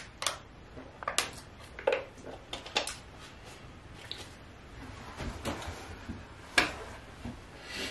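Plastic water bottle being handled while someone drinks from it: scattered soft crinkles and clicks, with one sharper knock about two-thirds of the way through.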